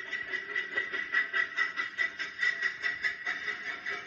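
Recorded steam locomotive sound effect played from the model's sound unit: rhythmic chuffing at about four to five beats a second over a steady hiss.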